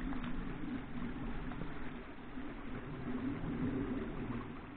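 Wind buffeting the microphone: a low, uneven rumble.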